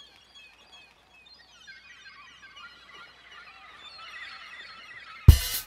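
Many birds chirping: a dense chorus of short, quick chirps that grows louder. Near the end a song with drums comes in on a sudden loud hit.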